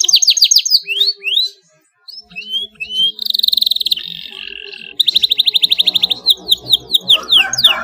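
Canary singing: fast trills of rapidly repeated high notes mixed with downward-sweeping whistles, cutting out for a moment about two seconds in before the trills resume.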